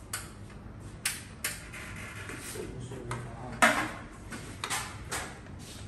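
A run of sharp clicks and knocks from hands handling metal parts of a switchgear cabinet, the loudest about three and a half seconds in.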